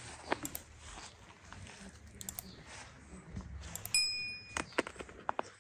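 Leaves and twigs of redcurrant bushes rustling, with small snaps and clicks, as someone moves through the branches picking. About four seconds in, a click followed by a short bright chime: a subscribe-button sound effect.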